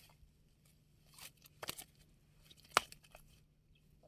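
Freshly landed fish flapping on dry grass as it is held and turned by hand: a crackling rustle of dry stalks, with two sharp slaps about a second apart past the middle.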